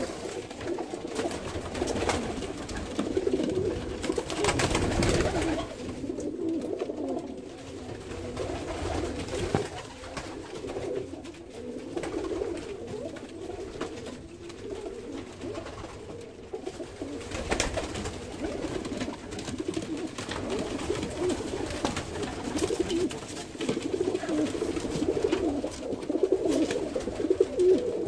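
Domestic pigeons cooing continuously, a low rolling coo, with a couple of brief knocks or rustles about 5 and 17 seconds in.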